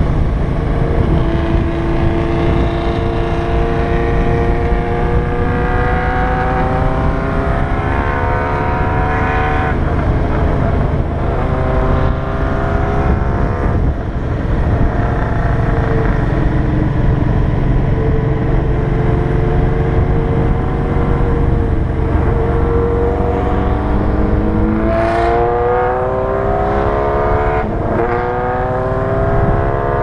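Motorcycle engine heard from on board while riding, its pitch climbing slowly as it accelerates and dropping back at gear changes a few times, over a steady low wind rumble on the microphone.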